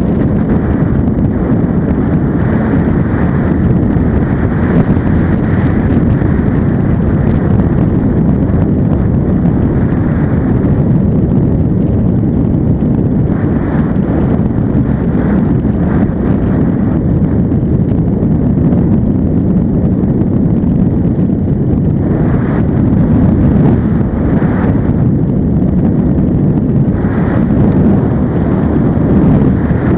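Steady, loud wind rush on the microphone mixed with the drone of an ultralight trike's engine and pusher propeller in cruise flight, with the wind gusting a little louder a few times.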